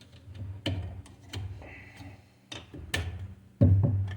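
Irregular metallic clanks and clicks, about half a dozen knocks, from the steel parts of a 727 automatic transmission being handled and pried apart during teardown, the loudest pair near the end.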